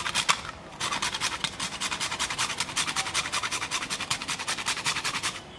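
Whole nutmeg being grated by hand over a saucepan of béchamel: quick rasping scrapes, about ten a second, with a short pause about half a second in.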